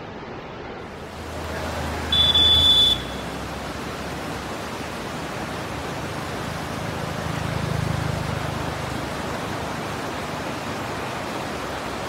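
River water rushing over rock rapids as a steady hiss. About two seconds in, a loud, high-pitched tone lasts under a second.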